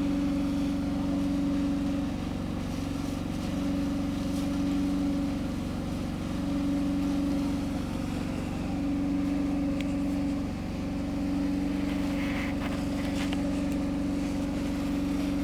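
A running engine giving a steady drone at an unchanging pitch, its level easing and swelling gently every couple of seconds, with a few faint clicks in the second half.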